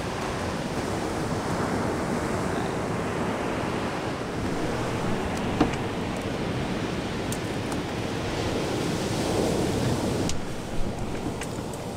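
Ocean surf breaking on the beach: a steady rushing wash, with some wind on the microphone. A couple of short knocks stand out, the louder one near the end.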